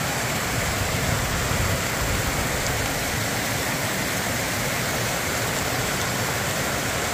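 Waterfall rushing steadily, white water cascading down rock ledges into a gorge.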